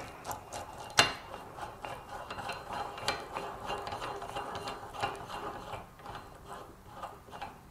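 Threaded pull-in tool being unscrewed after seating a new shaft seal in a gearbox cover: a run of irregular metallic clicks and ticks as it is turned, with one sharper click about a second in.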